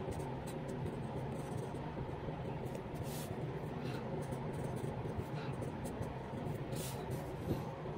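Fountain pen nib scratching across paper in short, irregular strokes as Chinese characters are written, over a steady low background hum.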